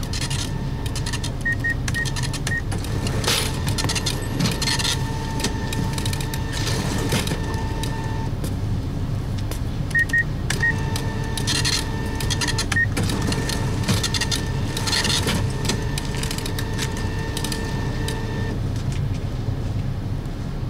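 Convenience-store ambience: a steady low hum with clicks and rustles of goods being handled. Twice, a few short beeps lead into a long, steady high tone lasting several seconds.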